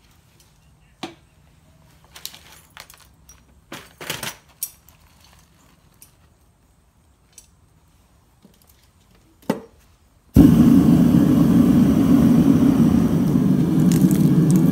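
Scattered clinks and knocks of scrap copper and a steel lid being handled at a small melting furnace and crucible. About ten seconds in, a loud steady low rumble starts abruptly.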